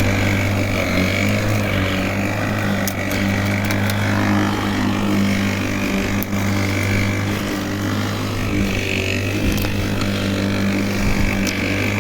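Worx 40 cm cordless battery lawnmower running steadily while cutting grass, its electric motor and spinning blade giving an even hum, with a few light ticks.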